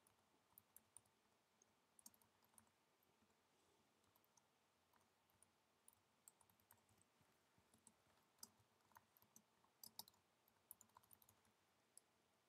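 Faint, scattered clicks of a computer keyboard being typed on, irregular and sparse, with near silence between them.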